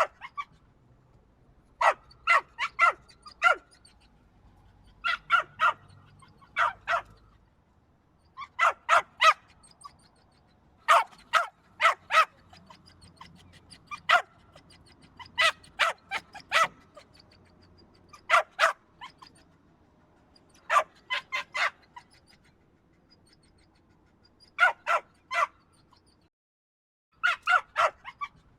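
A dog barking in quick runs of two to four short, sharp barks, with pauses of a second or two between runs.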